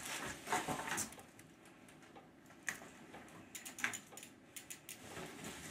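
Scattered light knocks, clicks and rustles of cardboard packaging and bike parts being handled while a new BMX bike is unpacked from its box, with a small cluster of knocks a little past the middle.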